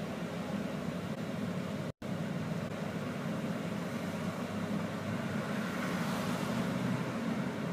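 Steady low hum inside a standing BKM 321 trolleybus, with road traffic outside the window. Cars pass close by, the loudest swelling near the end. The sound cuts out for an instant about two seconds in.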